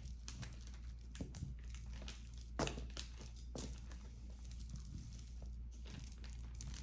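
Crinkling and rustling with scattered small clicks as jewelry pieces are handled, with a couple of louder clicks midway.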